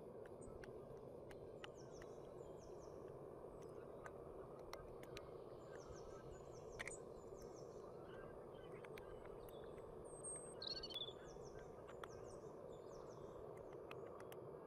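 Faint steady background noise with a few short high bird chirps now and then, one about ten seconds in, and light scattered ticks.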